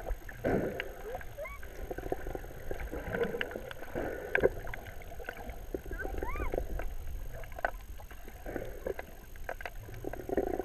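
Water sloshing and bubbling heard from just under the surface, muffled, with scattered small clicks and a couple of brief warbling chirps.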